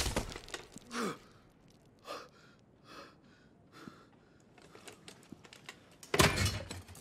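A man gasping and straining in a struggle, amid scattered small knocks and scuffling clicks, with a louder noisy burst about six seconds in.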